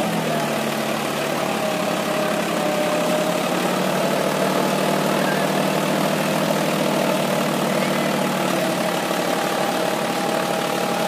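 Powertrac 4WD tractor's diesel engine running steadily at an even pitch while it pulls a rotavator through a flooded paddy field.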